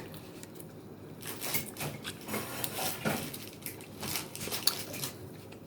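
Scattered soft clicks, taps and rustles of food and its takeout packaging being handled close to the microphone during a meal.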